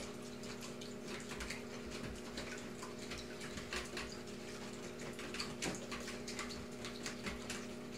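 Wire whisk beating eggs and milk in a glass bowl: quick, irregular clicks of the whisk against the glass with a wet slosh of the mixture.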